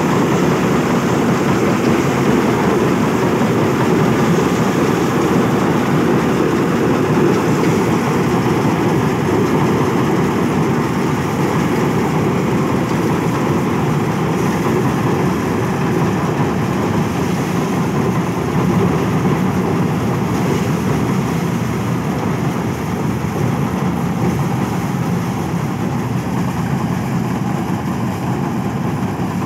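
Eicher 557 tractor with a tractor-mounted combine harvester running: the engine and the harvester's chain drives and threshing gear make a steady, dense mechanical noise that slowly grows fainter as the machine moves off into the crop.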